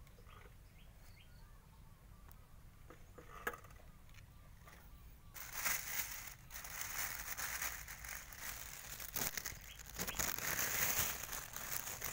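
A few faint clicks, then from about five seconds in a plastic bag crinkling and rustling loudly as it is handled, on and off.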